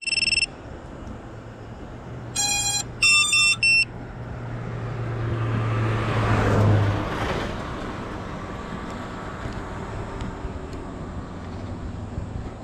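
A short electronic beep at the start and a quick string of loud electronic beeps two to three seconds in, then a car driving past on the road, its sound swelling to a peak past the middle and fading away.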